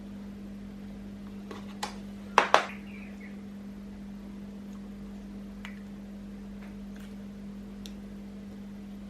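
A few short taps and clicks, the loudest a quick pair about two and a half seconds in and fainter ones later, over a steady low electrical hum.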